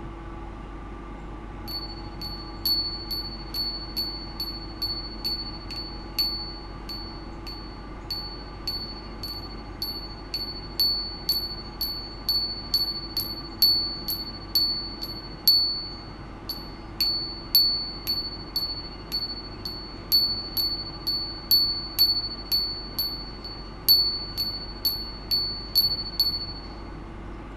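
Small suspended metal ring pinging over and over, about twice a second and uneven in strength. Each ping is a bright, high ringing tone that fades away. The pings start about two seconds in and stop shortly before the end, over a faint steady electrical hum.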